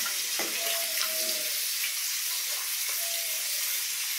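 A steady, even hiss, with a couple of faint short tones in the background.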